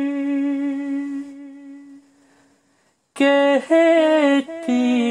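A man's voice singing a noha lament holds one long, wavering note that fades away about two seconds in. After about a second of near silence the singing resumes with the next line.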